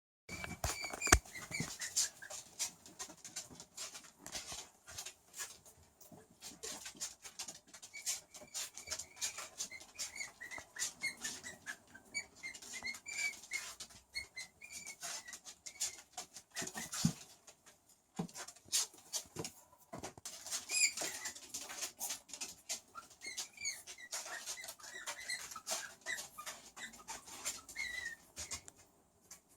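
Skunk giving many short, high squeaks and chirps over a near-constant run of rapid clicks and snuffles.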